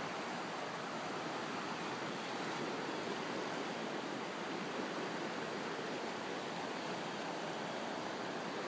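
Fast-flowing river water rushing steadily, a continuous even roar of current.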